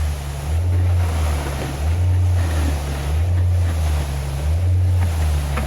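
Concrete truck's diesel engine running at a concrete pour, a low hum that swells and eases about once every second and a quarter. Wind buffets the microphone over it.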